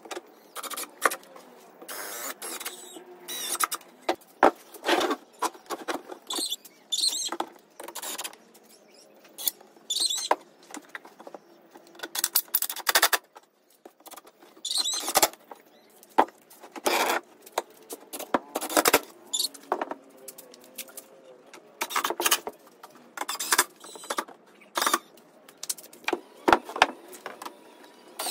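Cordless drill-driver driving screws into 18 mm plywood shelf panels, in many short bursts of a second or less with brief pauses between.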